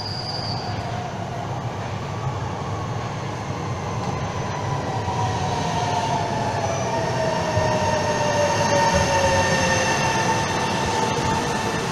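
Alstom Coradia Meridian ETR 526 electric train pulling into an underground station platform. Its rumble grows louder as it comes past, with a whine that falls slowly in pitch as the train slows to stop.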